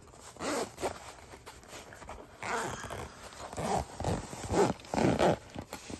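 Zipper on a soft handgun pouch being pulled open in several short rasps.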